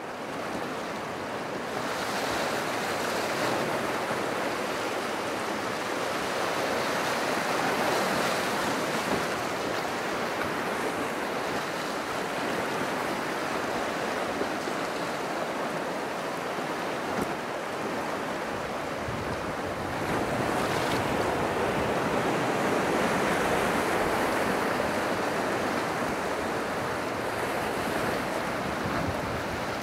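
River rapid rushing over rocks, a steady wash of whitewater heard from a raft in the current.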